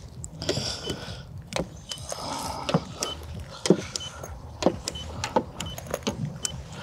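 Irregular light clicks and taps, two or three a second, with faint short high beeps in between, from a handheld paint-thickness gauge being set against the car's body panels.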